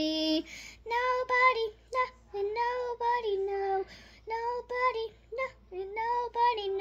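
A girl singing the song's melody in short phrases, with brief gaps between them.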